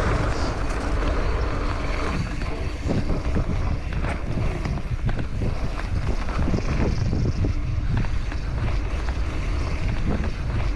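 Wind buffeting the microphone as a trials (jib) bike rolls fast over a dirt bike-park trail. From about two seconds in, frequent short clicks and knocks from the tyres and bike run through it.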